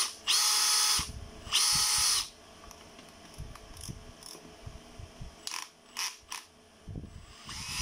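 Makita DF480 18V brushless cordless drill run unloaded at high speed in two short trigger pulls, each spinning up quickly to a steady high whine and winding down. Then a few light clicks.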